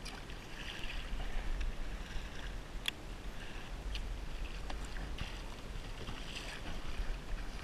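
Faint water sounds around a kayak under way, with low wind rumble on the microphone. A few light clicks come from handling the rod and reel, the sharpest about three seconds in.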